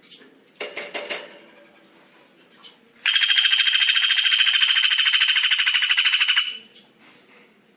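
Songbird giving a couple of short harsh squawks, then a loud, fast, even trill of about fourteen notes a second held for over three seconds before stopping abruptly.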